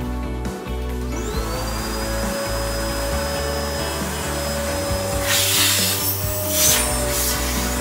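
Homstar HS-VC2300 vacuum cleaner's motor spinning up about a second in, its whine rising in pitch and then holding steady. From about five seconds in, a louder rushing, rubbing noise comes in with repeated swells, as the nozzle is worked over a surface.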